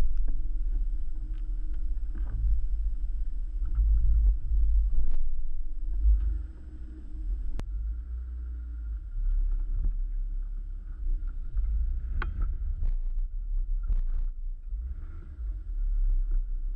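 BMW X5 xDrive30d crawling off-road over rocky dirt, picked up close to the wheels and underbody as a deep, uneven rumble with a few sharp knocks.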